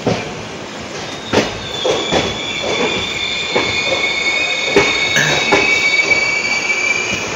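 Passenger train running with a high steel-wheel squeal, two held tones coming in about a second and a half in and fading near the end, over the rumble and knocks of the coach on the rails.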